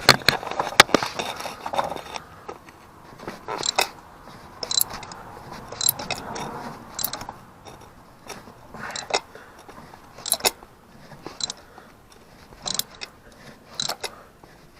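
Socket-wrench ratchet clicking in short, uneven strokes, about one click a second, with scraping and rustling between, as a stubborn spark plug is worked loose.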